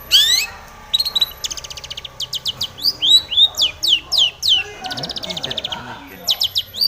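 Long-tailed shrike singing energetically, mixing rapid buzzy trills with quick, sharply falling whistled notes.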